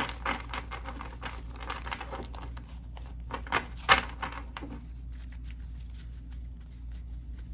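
Deck of playing cards being handled: a quick run of light flicks and clicks, with a couple of louder taps a little before four seconds in. The handling dies down to faint room noise after about five seconds.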